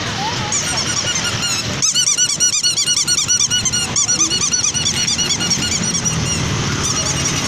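Birds calling in a fast run of short honking cries, several a second, beginning about two seconds in and thinning out after about six seconds.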